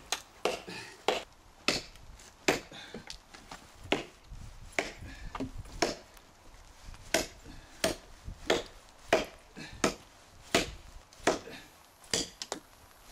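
Cold Steel Trail Hawk tomahawk chopping into a hard, seasoned elm log: a steady run of sharp strikes, about one and a half a second.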